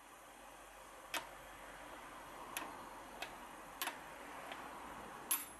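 Aluminium step clamps set down on an aluminium T-slot machine table: about six sharp clicks at irregular intervals, the loudest near the end with a brief metallic ring, over a faint steady hiss.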